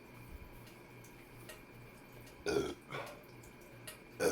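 A person burping: one burp about two and a half seconds in, and another starting near the end.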